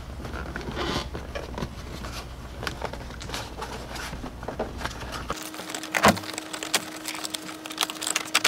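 Light rustling and scattered clicks of a wire and plastic interior trim being handled as the wire is pressed under a Jeep's door-sill trim, with the sharpest clicks about six seconds in and near the end. A faint steady hum runs underneath, changing to a thin steady tone about five seconds in.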